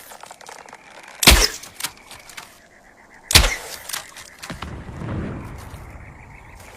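Combat bow-and-arrow sound effects: two sharp loud hits about two seconds apart, each trailed by a brief rattle of smaller clicks, then a low rumble for a second or so.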